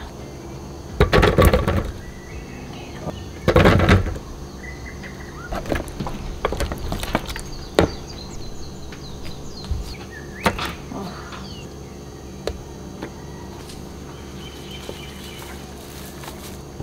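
Food being dropped by hand into a clear plastic food-processor bowl: two loud clattering drops about a second and three and a half seconds in, then scattered knocks and light taps as more pieces go in.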